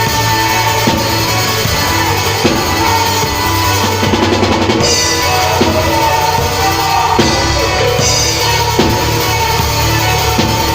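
A band playing music with a drum kit to the fore: kick drum and snare strikes over sustained low bass tones and held higher pitches.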